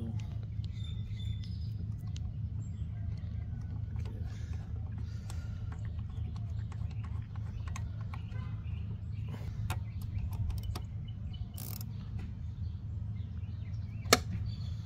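A steady low background hum with faint bird chirps, small clicks and taps of carburetor parts being handled, and one sharp click near the end.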